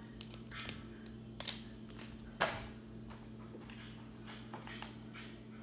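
Handling knocks and rustles: a series of short sharp clicks, with two louder knocks about one and a half and two and a half seconds in, over a steady low hum.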